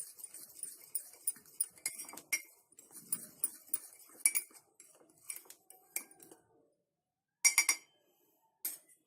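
A fork stirring dry cake mix in a mug, its tines clinking and tapping against the sides in quick, irregular strokes. The stirring stops about two thirds of the way in, then a few louder clinks follow near the end.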